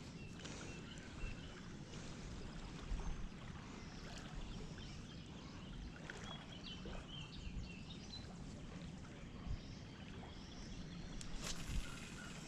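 Quiet open-air ambience by water: a steady low rumble and hiss, with scattered small clicks and faint short chirps.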